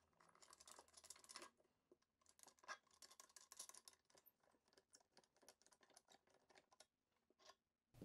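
Near silence with faint, irregular clicks and scrapes as a racquet frame is unmounted from the Klippermate stringing machine's mounting supports.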